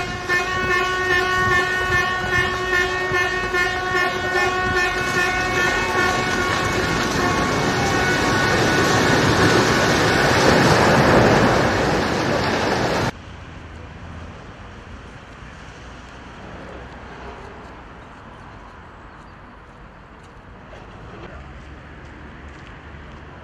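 A vehicle horn is held in one long, steady blast while a multi-storey concrete building is brought down. As the horn fades, a rising rumble and crash of the collapsing building swells for several seconds. The sound then cuts off suddenly about 13 seconds in, leaving only faint background.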